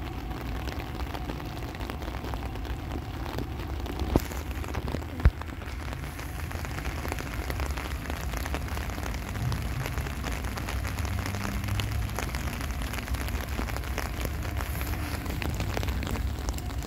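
Steady rain falling on a wet platform, over a low rumble that grows a little louder after about six seconds. Two sharp knocks stand out, about four and five seconds in.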